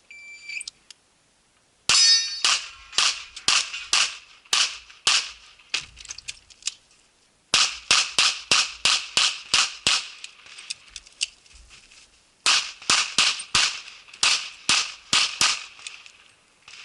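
A shot timer's start beep, then a pistol fired rapidly in three strings of about ten shots each, roughly two or three shots a second, with a pause of a couple of seconds between strings. The pauses fit magazine changes with 10-round magazines.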